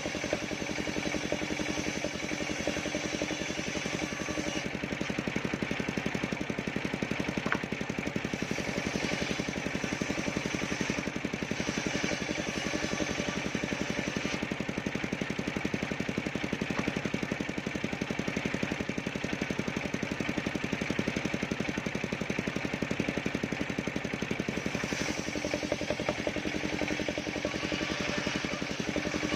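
Engine of a mobile circular sawmill running steadily with a fast, even firing beat; its higher sound dips slightly about five seconds in and comes back near the end.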